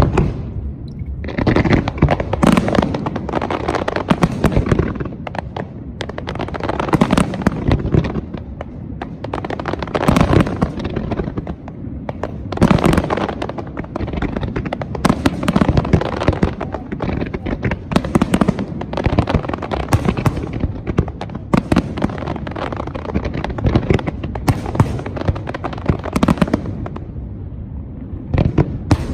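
Fireworks display: aerial shells bursting in quick succession, a near-continuous barrage of bangs and crackle that starts about a second in, with louder bangs standing out every few seconds.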